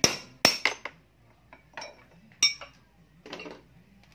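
Hammer blows on a long steel bar driving out the upper steering-head bearing race of a Yamaha Mio scooter, sharp clanging metal-on-metal strikes with a ringing tail. Three quick blows at the start and two more spaced a second or so apart, then a short clatter about three seconds in.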